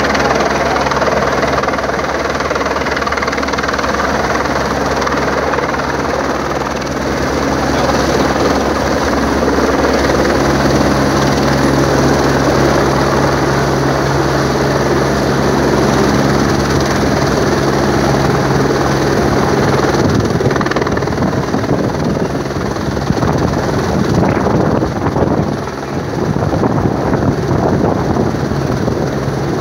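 Police helicopter hovering low and coming down to land, a steady rotor and turbine drone. After about twenty seconds the sound turns rougher and gustier.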